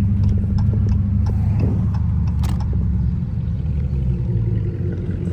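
Dodge V8 engine running at a loud, steady idle.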